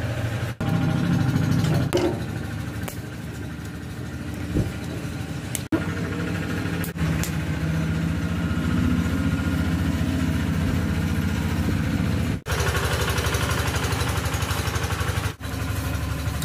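A small engine running steadily at idle, with a few brief dropouts.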